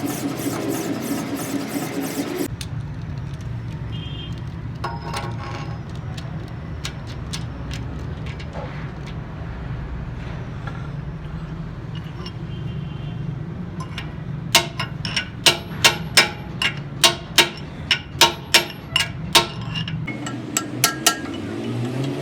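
Steady low workshop rumble with scattered metal clinks, then a run of sharp hammer blows on steel, about two a second, lasting around five seconds in the second half; a pitched machine hum is heard at the very start and again near the end.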